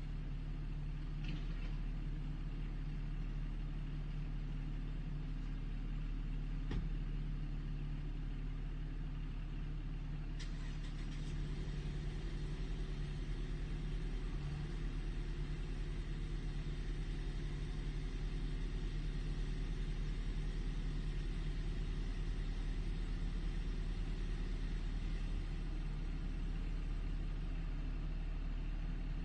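Backhoe engine running steadily with a low, even hum; a sharp click about ten seconds in, after which the engine note fills out and grows slightly louder.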